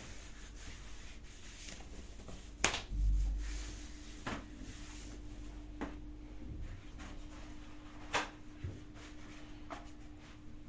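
Clothing rustling and rubbing as a man settles onto a toilet, with a few sharp clicks and a low thump shortly after the first, loudest click, over a faint steady hum.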